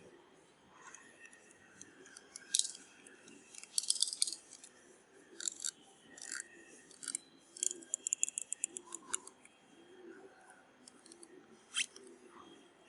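Large utility-knife (paper cutter) blade cutting into the hard plastic of a bicycle rear-view mirror's mount, with irregular sharp clicks and scrapes and a quick run of clicks about eight seconds in.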